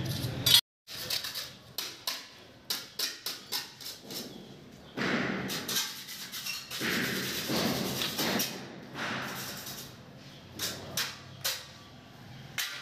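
Irregular light knocks and clicks, some close together and some spaced out, with a break to silence just under a second in.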